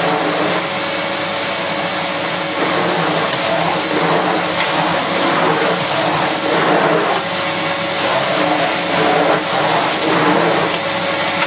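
Bush VCS35B15K0D-70 bagless cyclonic cylinder vacuum cleaner running with a steady motor whine while its floor head is swept back and forth over carpet, sucking up scattered sand; the rush of air swells and eases with each stroke. It is running without its post-motor filter fitted, and sounds quite quiet.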